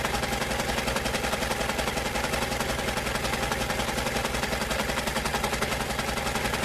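Electric sewing machine stitching at a steady fast speed: a rapid, even run of needle and mechanism clicks over the motor's constant hum.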